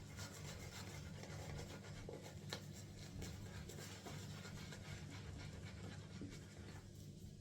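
Shaving brush being swirled and agitated through dense, wet shaving-soap lather: a soft, faint squishing and bristle-rubbing with small wet clicks.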